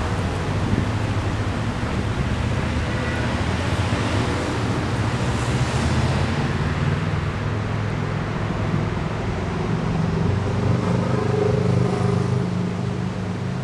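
Street traffic: a motor vehicle's engine hums steadily close by, and a car passes by about halfway through.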